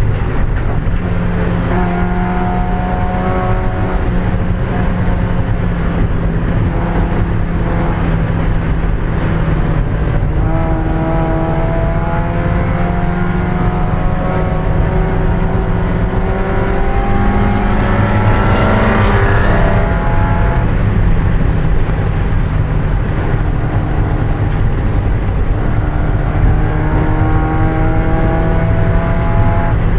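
1995 Mazda Miata's 1.8-litre four-cylinder engine at racing speed, its pitch repeatedly climbing and dropping as it runs up through the revs and shifts gears. A brief hiss comes about two-thirds of the way through.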